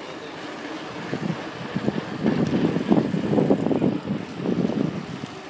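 Wind buffeting and riding noise on the camera of a moving bicycle, an irregular rumble that builds about a second in and is loudest through the middle seconds before easing near the end.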